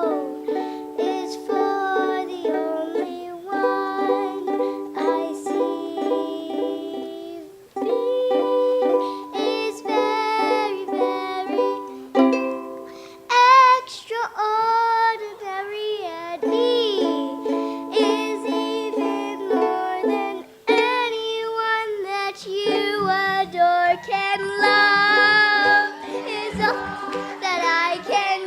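Background music: plucked string chords in a steady rhythm, with a gliding melody line over them.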